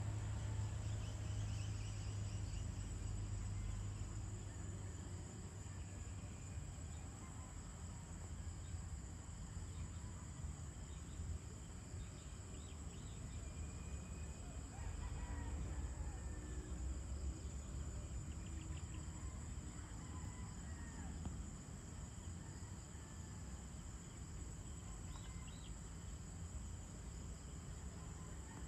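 Evening countryside ambience: a steady high-pitched insect chorus, with scattered short bird chirps and a low rumble underneath.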